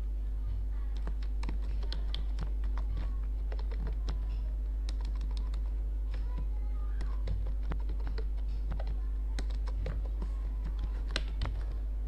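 Typing on a computer keyboard: irregular, quick clicking keystrokes with short pauses, over a steady low hum.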